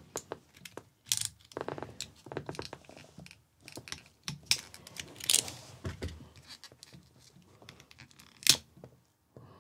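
Hot-glued plastic terminal guard being pried and scraped off a sealed lead-acid UPS battery with a small hand tool: irregular scraping, cracking and tearing of the glue, with one sharp click near the end.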